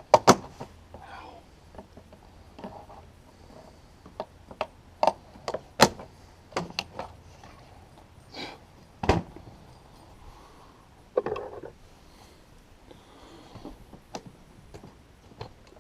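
A run of irregular sharp clicks and knocks, like parts being handled and set down, with the loudest just after the start and about nine seconds in.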